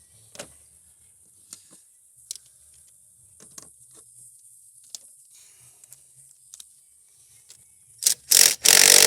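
Scattered light clicks and clinks of tools working at a car battery's positive terminal. About eight seconds in, a power tool gives a couple of short bursts, then runs continuously and loudly.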